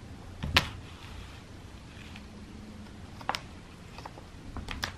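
Cat wand toy tapping against a plastic basket: a few sharp clicks over a low room hum, the loudest about half a second in, another about three seconds in and a quick pair near the end.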